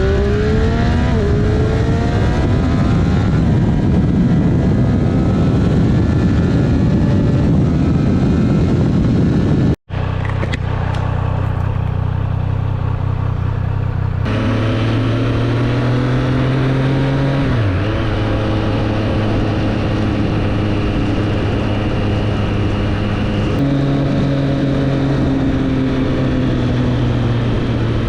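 2024 Triumph Street Triple 765 RS's inline three-cylinder engine pulling with rising revs, heard over a heavy rushing noise. About ten seconds in the sound breaks off for an instant, and after that the engine runs at fairly steady revs, with the pitch shifting a few times.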